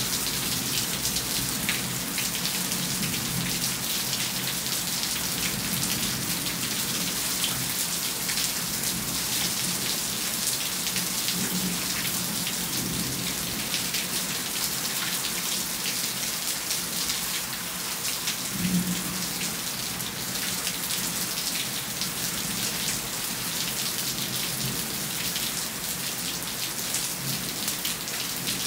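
Steady heavy rain falling in a thunderstorm, with low rumbles of thunder rising and falling now and then and one brief louder rumble about two-thirds of the way through.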